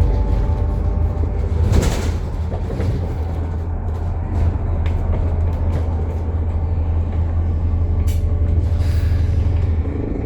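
Alexander Dennis Enviro400 MMC double-decker bus on the move, with a loud axle noise: a deep steady drone with a whine over it that fades after the first few seconds. A brief rush of noise comes about two seconds in.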